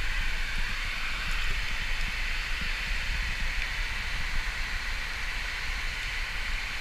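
River water moving around a hand and a northern pike held at the surface, picked up by a camera right at the waterline: a steady rushing hiss over a low rumble.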